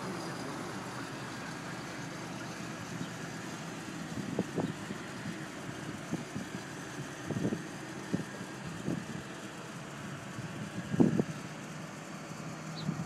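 Steady low hum of an idling car engine, broken by several short dull thumps from the phone being handled; the loudest thump comes about eleven seconds in.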